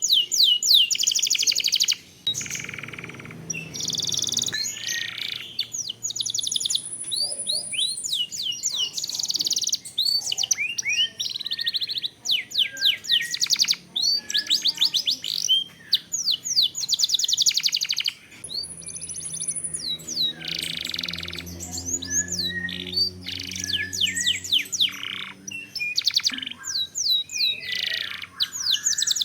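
Domestic canary singing long, rapid rolling trills and quick chirps in continuous phrases, with a few high whistled notes. A faint low hum sits underneath twice.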